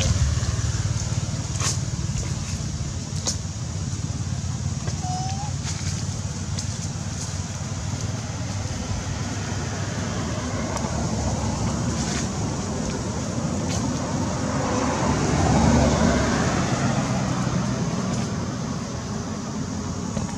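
Steady outdoor background rumble like road traffic, swelling about fifteen seconds in and then fading, with a few faint clicks and one brief faint squeak about five seconds in.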